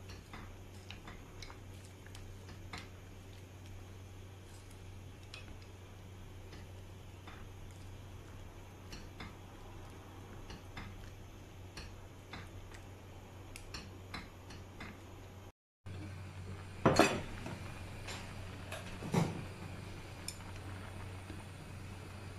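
Utensil tapping and scraping against a pot while spaghetti is stirred in water, with light scattered clicks and two louder clatters about two-thirds of the way through, over a steady low hum.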